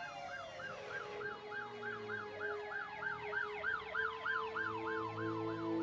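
Emergency vehicle sirens. One runs a fast yelp of about three pulses a second, and a slower wailing siren rises and falls beneath it. Soft sustained music notes swell in near the end.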